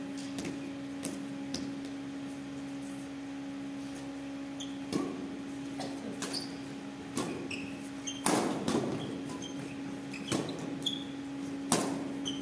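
A badminton doubles rally: sharp racket strikes on the shuttlecock come every second or few seconds, the loudest about eight seconds in. Short shoe squeaks on the court floor fall between them, over a steady low hum.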